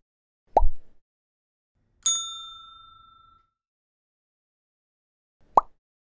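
Animation sound effects: a short pop about half a second in, then a bright bell-like ding about two seconds in that rings for about a second, and another short pop near the end.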